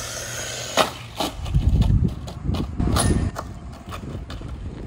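Small brushless RC crawler driving on a concrete street: a rumble with a run of sharp clicks and knocks, starting about a second and a half in, after a steady hiss.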